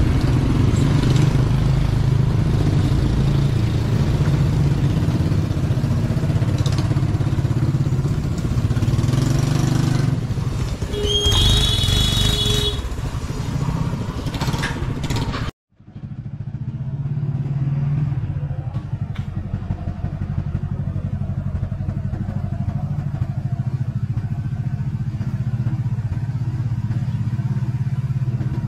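Motorcycle engine running steadily under way, heard from the rider's seat. About eleven seconds in a horn beeps for about a second and a half. A little past the middle the sound cuts out for an instant, then the engine carries on a little quieter.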